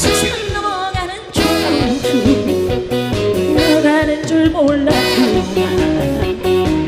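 A live band playing an upbeat disco song with a woman singing the lead through the PA, over a steady beat. The music drops out briefly about a second in, then comes straight back in.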